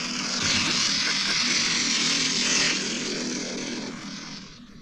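A dense chorus of toads calling, a steady rasping buzz that fades near the end.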